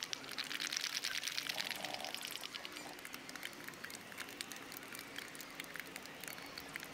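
A group of players clapping their hands: many quick claps together that thin out after about two and a half seconds into scattered single claps.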